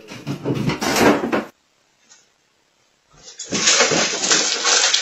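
Household knocking and clatter as a cat jumps onto a bookshelf, then a short break, then a dense, steady rustling as a cat thrashes about tangled in fabric.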